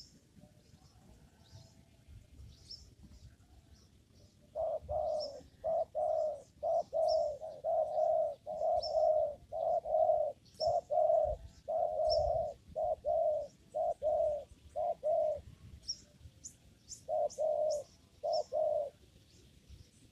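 Spotted dove (tekukur) cooing in a long run of short, repeated notes, pausing near the middle and resuming briefly near the end. Faint high chirps from small birds sound throughout.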